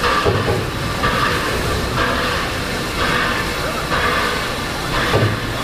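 Victorian Railways R class steam locomotive R761 giving off rhythmic beats of steam, about one a second, over a steady hiss.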